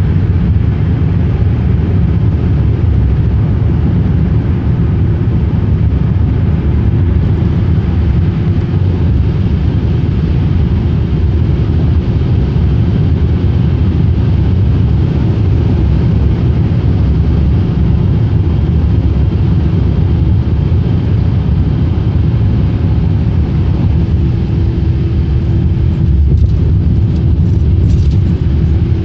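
Road and engine noise inside a car's cabin at highway speed: a steady low rumble, with a steady hum joining in near the end.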